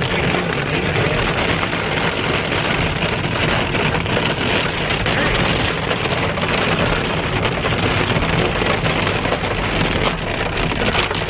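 Hail and heavy rain hitting the roof and windshield of a moving car, heard from inside the cabin: a dense, steady clatter of many small impacts, with the car's low road hum beneath.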